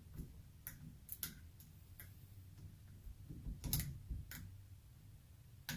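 Light, irregular clicks and taps of metal parts being handled on a workbench as a small vacuum pump is taken apart, about half a dozen sharp ticks with the loudest cluster a little after the middle.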